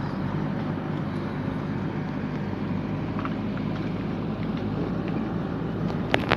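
A motor running steadily with a low hum. Two sharp clicks come near the end.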